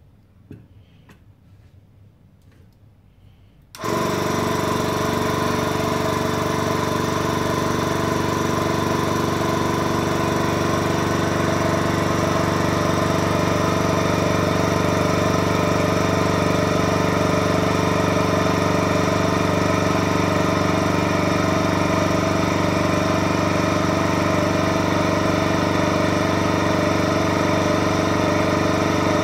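A light knock as the chamber's clear dome lid is set down, then a DIVAC 2.2L diaphragm vacuum pump switches on suddenly about four seconds in and runs with a steady mechanical hum, pumping the chamber down.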